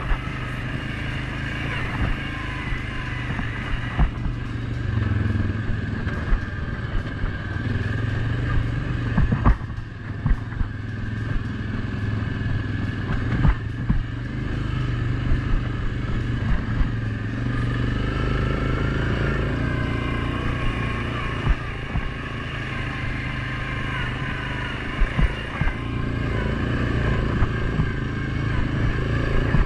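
Suzuki KingQuad 750 ATV's single-cylinder engine running under way on a dirt trail, swelling and easing with the throttle, with frequent sharp knocks and rattles as the machine jolts over the ground.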